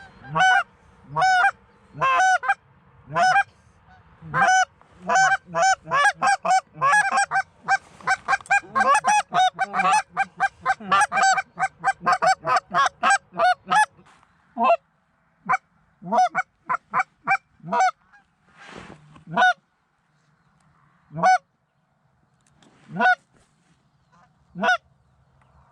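A flock of geese honking: a dense run of many overlapping honks for roughly the first half, thinning to scattered single honks with gaps in the second half.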